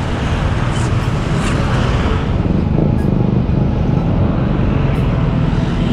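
Busy road traffic passing close by: motorcycles and cars running along the street in a steady traffic noise.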